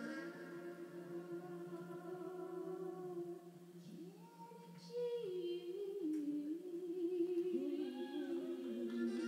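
A man and a woman singing together, heard through a television speaker: one long held note for the first few seconds, then, after a short dip, a run of sustained notes stepping up and down in pitch from about five seconds in.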